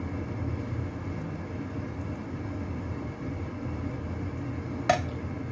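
Steady low background rumble with one sharp metal clink near the end, from a metal spoon scooping dumpling filling.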